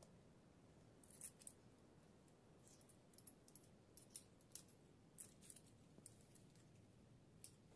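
Near silence with faint, short, sharp clicks and clinks scattered irregularly, some in quick pairs, the clearest a little after a second in and around four to five seconds in.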